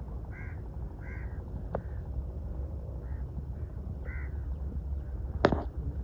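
Five short, evenly pitched bird calls scattered over several seconds, over a steady low rumble. A single sharp click near the end is the loudest sound.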